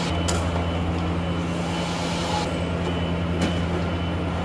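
Steady low machine hum made of several even low tones, with two faint clicks, one shortly after the start and one about three and a half seconds in.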